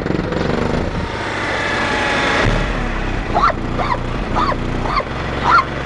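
FU Audio 15-inch subwoofers in a fourth-order enclosure playing loud, deep bass, with rattling over it, growing heavier about halfway through. A few short, higher-pitched sounds come in over the bass in the second half.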